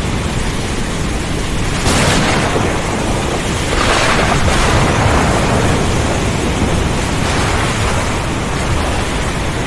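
Heavy rain and wind with a low rumble of thunder underneath, swelling about two seconds in and again around four seconds.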